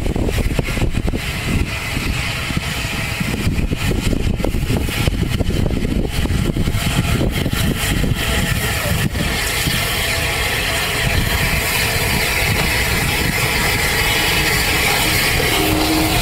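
Bulleid Battle of Britain class steam locomotive 34070 Manston working a train toward and past at close range. Its exhaust beats come first, then a steadier rolling noise as the engine and coaches draw level, about halfway through.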